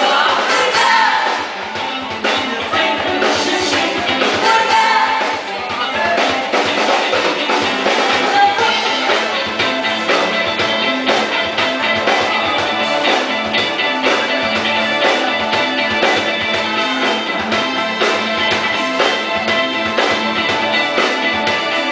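Live band music played loud with a steady beat: drum kit, timbales and electric guitar. Singing into microphones is heard mostly in the first half.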